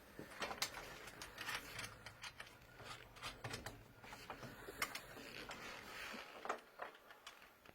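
Irregular light clicks, taps and rattles of bolts being pushed through and fitted into the metal bed-frame bars by hand.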